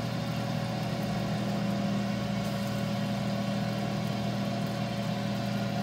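Emeril Lagasse air fryer oven running in rotisserie mode: a steady hum from its convection fan and rotisserie motor.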